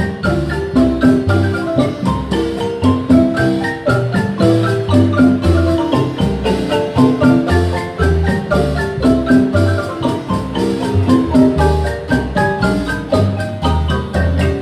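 Guatemalan marimba played in its bass and tenor parts: quick, rolling mallet strokes on wooden keys over deep, regular bass notes, in a steady rhythm.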